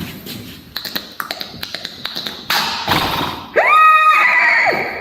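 Beatboxing mouth sounds: a run of quick sharp clicks and taps, then a hissing burst, then a pitched vocal note that rises quickly, holds for about a second and glides back down.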